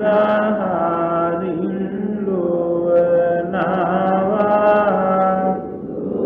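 Buddhist devotional chanting, melodic and slow, with long held notes that glide gently over a steady low drone. The chant eases off briefly near the end.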